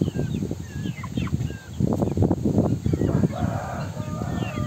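Chickens in a pen: short high cheeps scattered throughout, and a rooster crowing about three seconds in, one call held for over a second, over low rustling noise.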